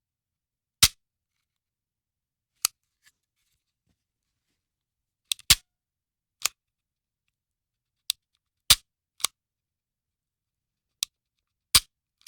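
Handgun dry firing: sharp metallic clicks of the hammer or striker falling on an empty chamber, about ten of them at irregular intervals, some in quick pairs.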